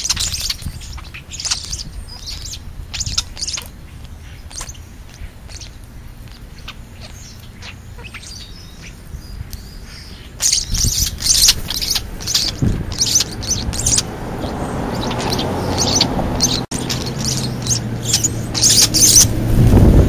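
European starlings feeding on the ground, giving many short, high chirps that become much busier and louder about halfway through. From about two-thirds of the way in, a low, steady motor hum rises beneath the chirping.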